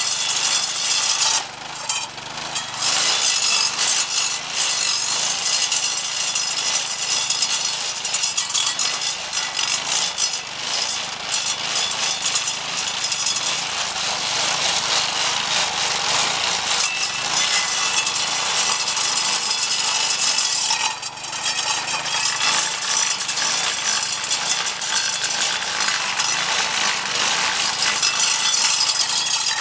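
Homemade stump grinder made from a lawn edger, its Briggs & Stratton 4.5 hp vertical-shaft engine driving a 10-inch carbide-tipped table-saw blade on a wobble plate, grinding into a tree stump. The blade chewing wood makes a loud, steady grinding noise that eases briefly about two seconds in and again about two-thirds of the way through.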